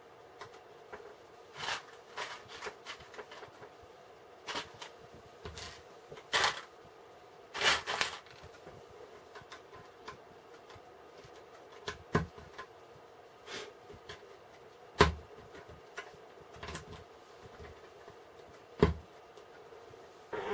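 Plastic BlueBrixx building bricks being handled and pressed together: scattered sharp clicks and short rattles over a faint steady hum.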